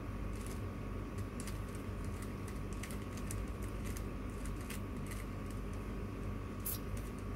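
3x3 puzzle cube being twisted by hand: a quick, irregular run of light plastic clicks as the layers turn, over a steady hum.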